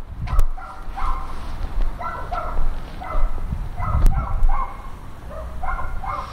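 Akita Inu dog giving a run of short, high-pitched yips and whines, one every second or so, with a couple of sharp knocks.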